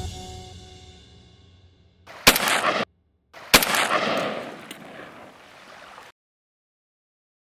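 Background music fading out, then two shotgun shots a little over a second apart, the second trailing off over about two seconds before the sound cuts out.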